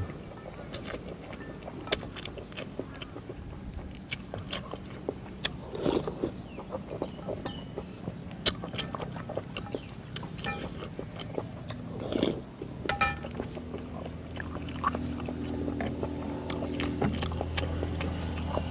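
A person eating noodle soup: chewing and slurping, with a metal spoon and chopsticks clicking against a glass bowl. About two-thirds of the way through, the low steady hum of an engine comes in and grows louder.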